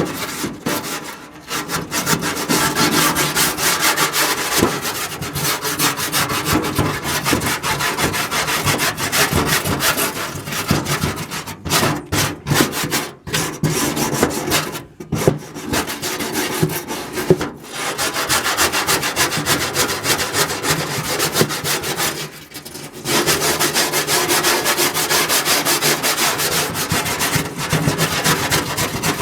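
Steel wire brush wheel, clamped in vice grips and worked by hand, scrubbing over metal in steady back-and-forth scraping strokes, with a few brief pauses.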